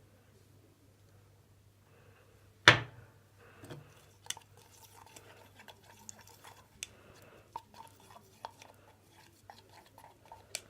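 A sharp knock a bit under three seconds in, then a run of small clicks and soft squelches, like a utensil working glue slime in a bowl.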